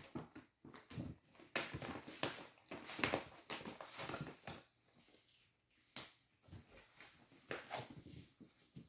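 Kittens playing and scuffling: a busy run of irregular scratches, rustles and light taps, with a short lull about halfway through.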